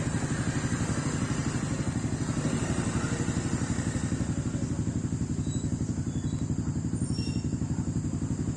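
Truck engine idling steadily with a fast, even pulsing beat.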